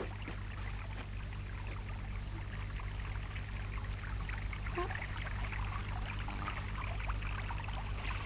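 Meltwater from thawing snow trickling and dripping steadily, with many small drip-like ticks.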